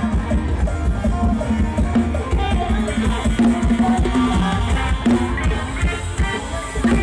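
Music with drums and heavy bass played loudly through a large PA sound system under test.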